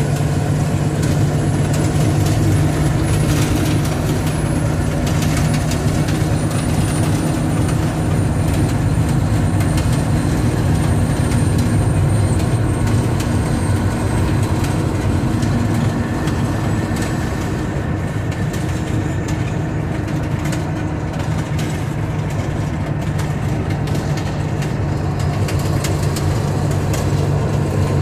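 Mack R-model truck's diesel engine running steadily under way, heard from inside the cab, with frequent clicks and rattles from the cab and tyres on a dirt road. A faint high whine slowly falls in pitch over the first half.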